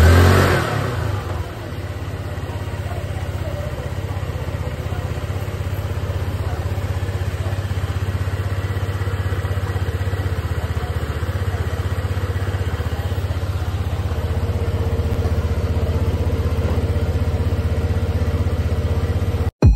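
Old 150 cc motorcycle engine running: a brief rev that falls back within the first second or two, then a steady idle that cuts off abruptly near the end.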